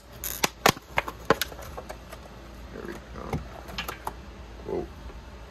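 Plastic packaging being handled: a plastic bag and a clear plastic clamshell pack crackling and clicking, with several sharp snaps in the first second and a half, then softer crinkling.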